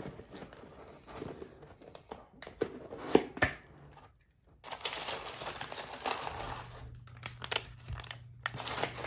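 Packaging crinkling and rustling, with scattered sharp clicks and knocks, as a fidget spinner is worked out of its box. There is a brief pause about four seconds in.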